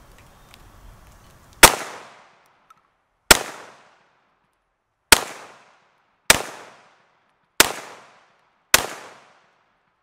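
Six single shots from a compact 9mm pistol, fired slowly and spaced about one to two seconds apart. Each crack fades out in a short echo.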